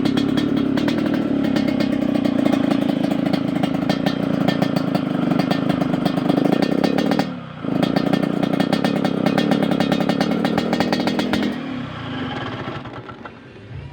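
Yamaha RX-King's two-stroke single-cylinder engine running through an aftermarket under-belly exhaust, giving the rough, rasping 'ngorok' (snoring) note at fairly steady revs. The engine breaks off briefly about seven seconds in, then picks up again, and the sound falls away over the last two seconds.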